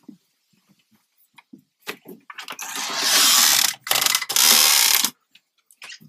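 Soft footstep knocks on wooden boards, then a cabin door being opened and passed through: two loud spells of scraping and rattling about two and a half and four seconds in.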